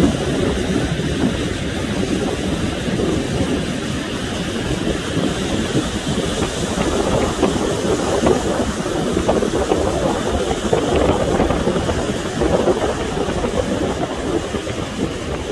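Wind buffeting the microphone in a rough, fluctuating rumble, over the steady wash of ocean surf breaking on the beach.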